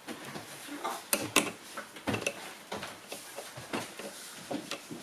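Irregular small clicks, taps and light knocks of hard plastic and metal: computer parts and tools being handled and fitted during a PC build.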